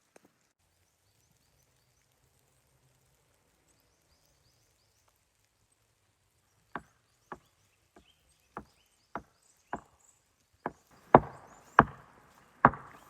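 Wood being chopped: about ten sharp, separate strokes, roughly two a second, beginning about seven seconds in, with the last three the loudest.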